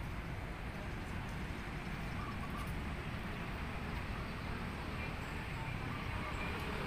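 Street ambience: a steady low rumble of traffic, with a few faint, short bird calls.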